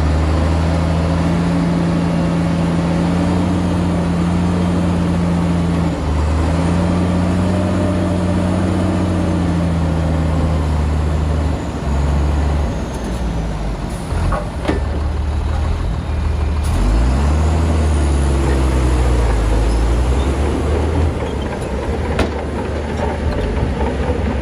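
Heavy diesel engine of earthmoving machinery running steadily, its speed dipping and picking back up a few times. A few sharp knocks come about halfway through and again near the end.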